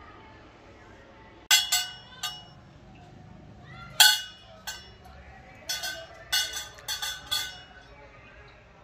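Metal rifle parts clinking against each other, sharp ringing clinks: a few about a second and a half in, a loud one about four seconds in, and a quick run of them between about six and seven and a half seconds.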